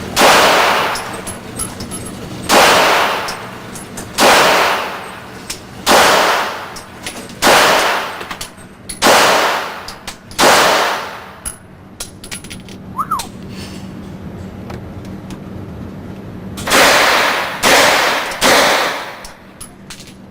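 Heckler & Koch P7 9mm pistol fired in single shots, ten in all. The first seven come about a second and a half apart; after a pause of about six seconds, three more follow in quicker succession.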